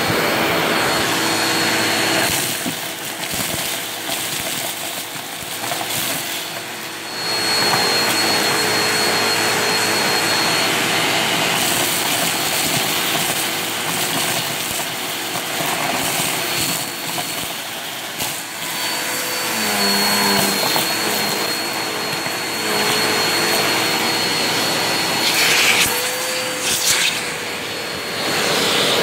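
Vacuum cleaner running continuously with a steady motor whine carrying a thin high tone. It grows louder and softer by turns, dipping for a few seconds at a time.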